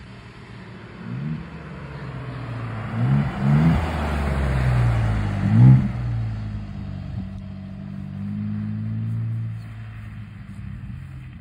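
Ford Bronco Raptor's twin-turbo 3.0-litre V6 driving past. It approaches with several short rising revs, is loudest as it passes about six seconds in, then drives away with a steady engine note that fades.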